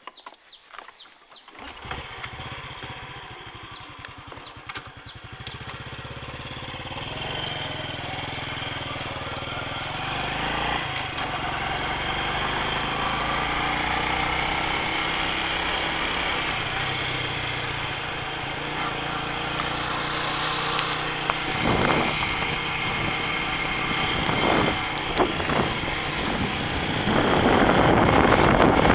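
A vehicle engine starts about a second and a half in and keeps running, getting louder as the vehicle gets under way along the road. Wind noise on the microphone builds near the end.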